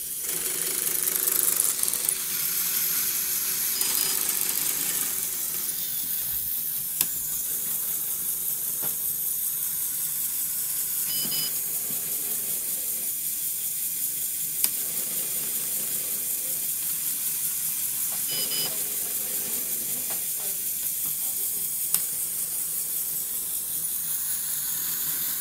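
Motorised LEGO Mindstorms loom running through its weaving cycle: a steady whirring hiss of its motors and gears, a sharp click about every seven seconds, and brief high two-note beeps between the clicks.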